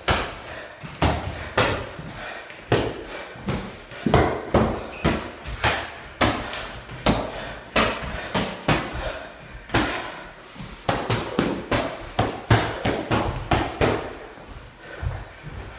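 Boxing gloves smacking into handheld focus mitts during pad work: a long run of sharp punches at about two a second, a little quicker in the combinations in the second half.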